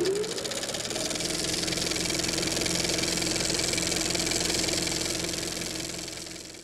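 Old film projector sound effect: a steady, rapid mechanical clatter with an underlying hum. A whine rises in pitch in the first second as it comes up to speed, and the sound fades out near the end.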